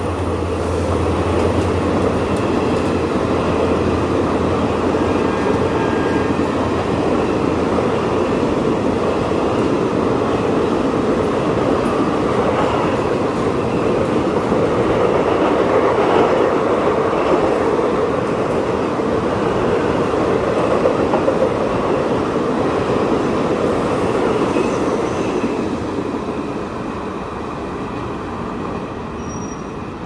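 Passenger coaches of an express train running through the station at speed, their wheels rumbling steadily on the rails; the noise eases off over the last few seconds as the train draws away.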